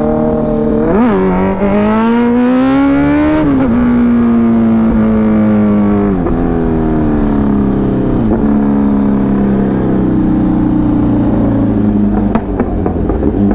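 Superbike engine pulling hard under full throttle, its pitch climbing through a gear change to a peak about three and a half seconds in. The throttle then closes and the revs fall, with short blips at two more gear changes and a few sharp pops near the end.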